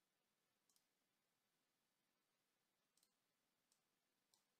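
Near silence, with a few very faint, scattered clicks.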